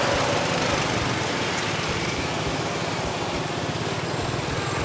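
Small motorcycle engine pulling a tuk-tuk cart, running steadily at low speed, with the hiss of road traffic around it.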